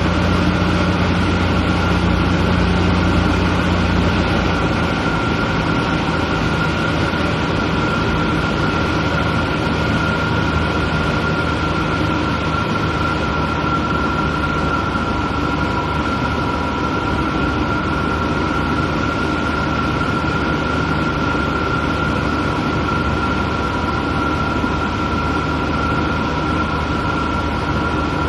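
Steady drone of a light airplane's piston engine and propeller heard inside the cabin in cruise flight, with a steady high whine over it; the low hum eases slightly about four seconds in.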